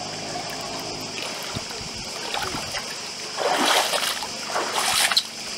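Small sea waves washing and splashing against shore rocks, with two louder surges about three and a half and five seconds in, over a steady high hiss.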